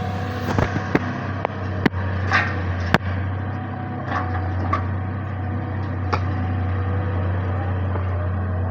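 Excavator engine running steadily, with a string of sharp cracks and knocks over the first six seconds as the machine digs.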